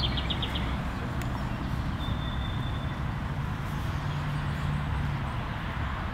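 Steady outdoor background noise with a low rumble, and a faint low hum appearing about four seconds in.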